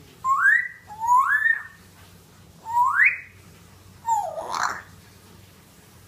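African grey parrot whistling: three short rising whistles in the first three seconds, then a rougher call that dips and rises again about four seconds in.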